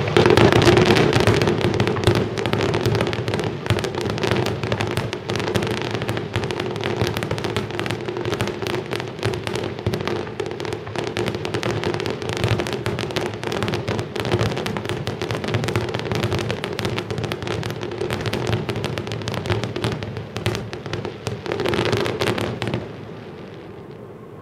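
Finale barrage of aerial fireworks: a dense, continuous run of bangs and crackles from many shells bursting together. It cuts off sharply near the end.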